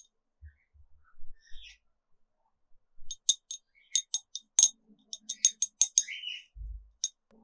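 Small sharp clicks and taps from painting gear being handled, a quick run of them for about four seconds in the second half, each with a light glassy ring, and a soft knock near the end.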